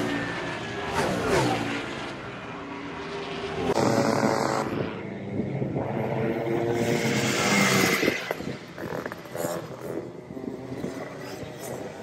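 Two-stroke Rotax kart engines running on track: a kart goes by with its engine note falling, then a louder stretch of engine rising in pitch under acceleration, easing off about two-thirds of the way through.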